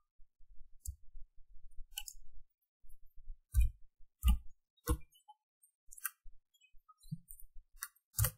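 Computer keyboard keystrokes and mouse clicks: about nine short, irregularly spaced clicks, a few of them louder than the rest.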